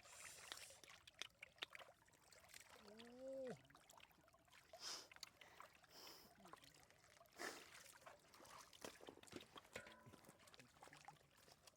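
Faint water trickling and sloshing with small splashes and clicks, as from hands or a body moving through shallow floodwater. A brief pitched, voice-like call rises and falls about three seconds in.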